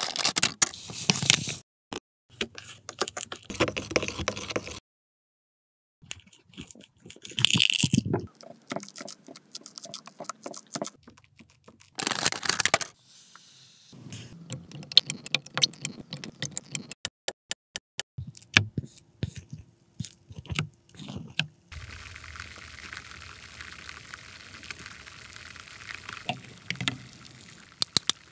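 A string of small close-up handling sounds from a toy cooking kit, in short clips split by silent gaps: scissors cutting a plastic powder sachet, liquid poured from a small plastic cup into a clear plastic pot, and plastic parts clicking and scraping.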